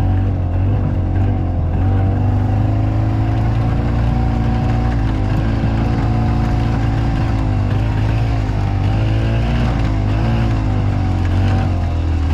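Harley-Davidson golf cart's engine running steadily while driving, its pitch wavering slightly up and down.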